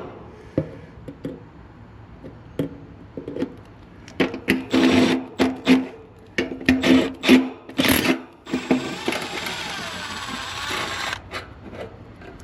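Cordless drill running in short repeated bursts as it drives screws to tighten loose wire terminals, with handling clicks before it starts. A steadier hiss follows for a couple of seconds near the end.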